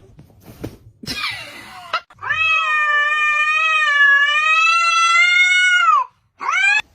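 A cat giving one long, drawn-out meow lasting about four seconds, with a slightly wavering pitch, followed by a short rising meow near the end.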